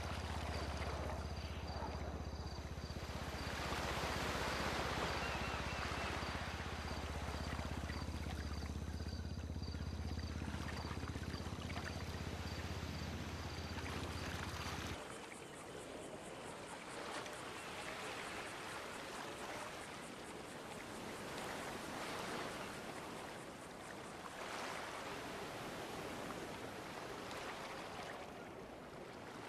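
Running water, a steady rushing noise, over a low hum that cuts off suddenly about halfway through.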